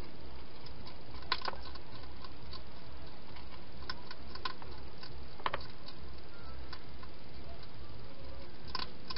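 Wild hedgehog eating from a plastic feeding bowl: a few scattered sharp clicks and crunches as it chews and knocks the bowl, over a steady low hum.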